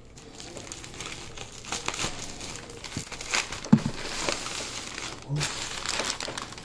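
Crumpled brown kraft packing paper and a padded mailer crinkling and rustling as they are handled and pulled open, with a soft thump a little past halfway.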